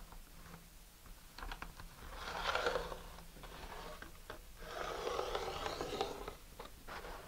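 Pencil drawn along a model rocket's paper body tube beside an aluminum angle-extrusion guide, marking fin lines. Two scratchy strokes about two and five seconds in, the second longer, with a few light taps between.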